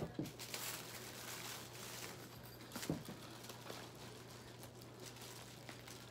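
Faint rustling and handling of packaging, with a couple of light knocks, over a steady low hum.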